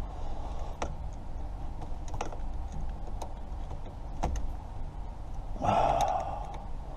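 Scattered clicks and taps of tools and plastic trim parts being fitted and fastened around a car's steering column, with one short whir about five and a half seconds in.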